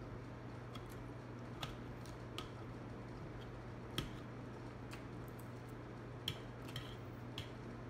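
Eating sounds: a metal fork clicking now and then against a plastic plate while twirling noodles, and noodles being chewed and slurped, over a steady low hum. The sharpest click comes about four seconds in.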